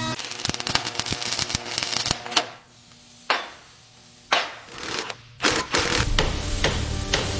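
Workshop clatter: a quick run of clicks and knocks, then three separate sharp bursts about a second apart, each fading over about half a second, with a low steady hum joining from about six seconds in.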